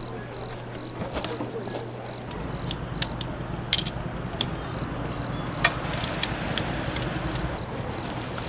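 Cricket chirping steadily in high, even pulses, about four a second, with scattered sharp clicks and a low rumble joining about two seconds in.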